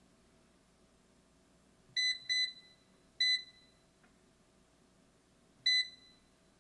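Cosori air fryer's touch control panel beeping as its buttons are pressed to set temperature and time: four short, high beeps, two in quick succession about two seconds in, one about a second later, and one near the end.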